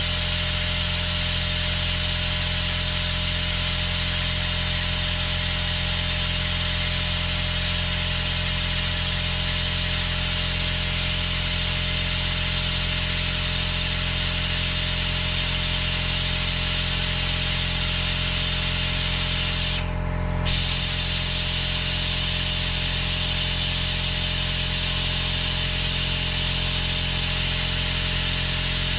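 Compressed-air venturi brake bleeder running, a steady loud hiss of air as it sucks old brake fluid out through the caliper's bleed nipple, over a steady hum. The hiss cuts out for about half a second around twenty seconds in, then comes straight back.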